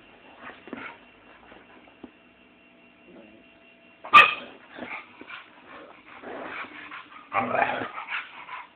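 Dog yipping and whimpering: one sharp yip about four seconds in, then a longer run of whines and yips near the end.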